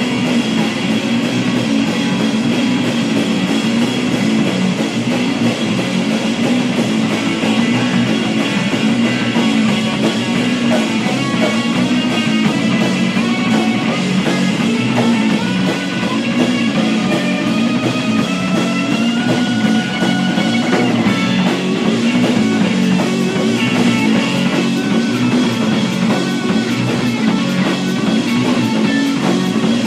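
Rock band playing: guitar over bass and drums.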